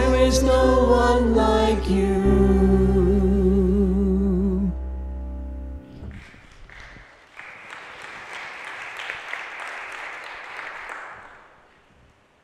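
Small vocal group singing the final held chord of a worship song, voices wavering with vibrato over a sustained low instrumental note that cuts off about six seconds in. Then a congregation applauds for about five seconds, dying away near the end.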